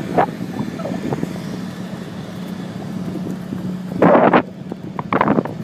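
Steady low engine hum, with wind buffeting the microphone in short loud rushes about four seconds in and again about a second later.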